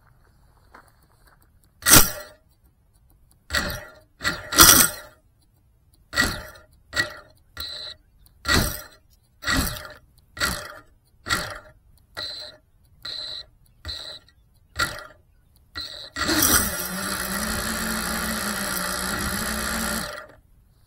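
A series of about a dozen short, sharp knocks, roughly one a second. Then an FPV racing quadcopter's motors spin up and run steadily at idle for about four seconds with a low hum, and cut off suddenly.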